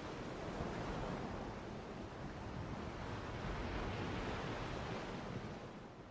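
Ocean surf ambience: a steady wash of breaking waves that fades out near the end.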